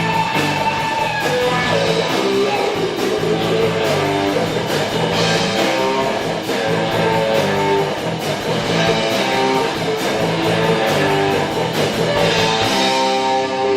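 Live band playing, with guitar over a walking bass line and drums keeping a steady cymbal beat; the cymbals stop near the end.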